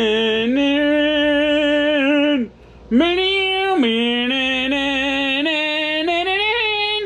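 A single voice singing long held notes without words, in two phrases with a short break about two and a half seconds in; the notes step up and down in pitch with a slight waver.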